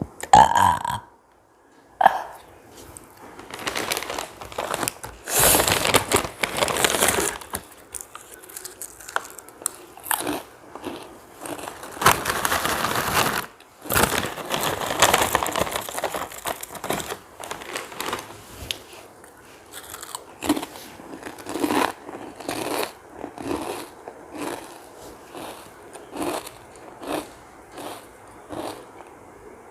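A short burp right at the start, then potato chips being bitten, crunched and chewed, with the crinkle of the chip packet.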